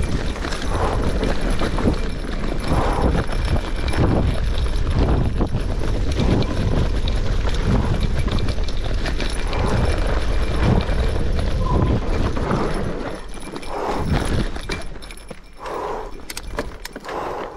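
Mountain bike riding fast down a dirt trail: tyres crunching over dirt and the bike rattling and knocking over bumps, with wind buffeting the microphone. It gets quieter in the last few seconds.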